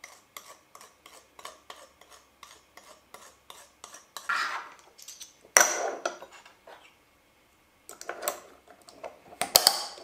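Kitchenware clinking: a run of light, even clicks about three a second, then a scrape and a sharp clatter with a ringing note, and more clatter near the end.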